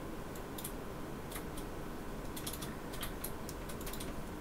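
Hands handling small craft materials: light, irregular clicks and ticks over a steady low room hum.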